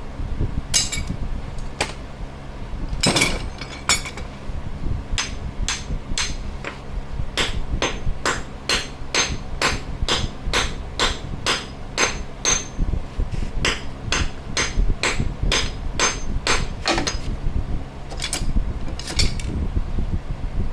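Hammer blows on metal with a ringing note: a few scattered strikes, then a steady run of about two blows a second for some twelve seconds, then two more. They are the hammering used to break loose a worn front ball joint on a Nissan 350Z's suspension.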